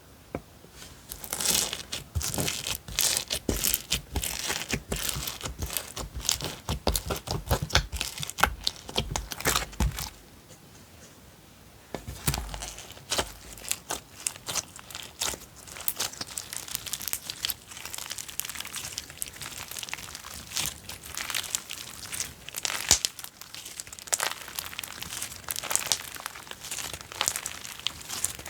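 Slime being squeezed and pressed by hand, making dense crackling, popping and crinkling clicks, with a short pause about a third of the way through.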